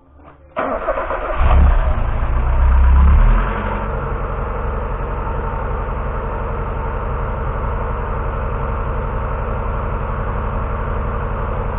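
1991 Mazda Miata's 1.6-litre four-cylinder engine starting and running, loud and low for the first few seconds, then settling into a steady idle about three and a half seconds in. It is idling while the cooling system is being refilled.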